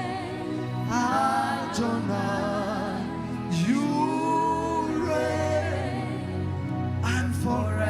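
Gospel worship music: voices singing a melody over a steady instrumental backing with bass.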